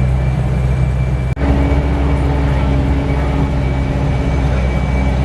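Bus's Mitsubishi Canter 125 PS diesel engine running steadily under way, heard inside the cabin. The sound drops out for an instant about a second in, then goes on with a steady whine added.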